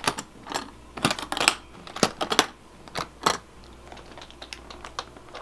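Metal latches of an aluminium hard rifle case being flipped open: a quick run of sharp metallic clicks and snaps, about a dozen, some in pairs, over the first three and a half seconds, then only faint handling ticks.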